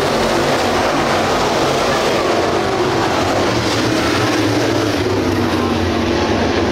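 A field of dirt late model race cars with GM 602 crate V8 engines running at racing speed around the oval, a steady dense blend of engine noise.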